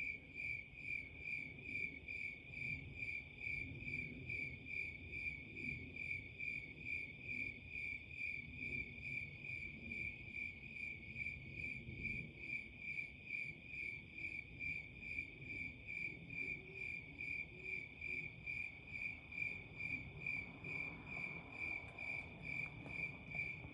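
A cricket chirping in a steady, even rhythm, about two and a half high chirps a second, over a low background rumble.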